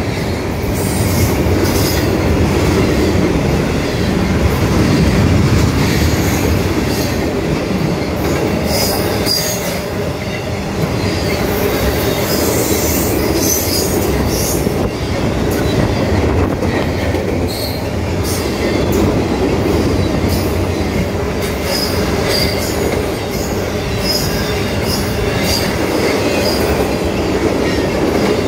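Freight train of double-stack container cars and trailer-carrying flatcars rolling past at steady speed. Steel wheels rumble on the rails, with frequent sharp high-pitched clicks and squeals from the wheels and running gear.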